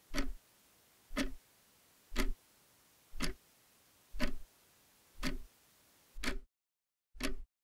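Clock ticking steadily, one sharp tick about every second. A little after six seconds in, the faint background hiss between the ticks drops out to dead silence while the ticking carries on.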